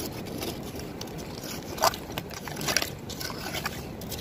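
Stones and shells clicking and scraping as hands dig through the shore for small sea snails, with a few sharp knocks standing out, the loudest about two seconds in, over a steady low rushing background.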